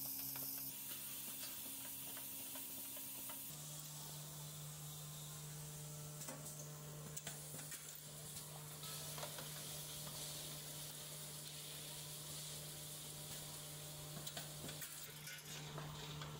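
Automatic screw assembly machine running: a steady low hum with a high hiss and scattered light mechanical clicks. The hum changes pitch abruptly a few seconds in.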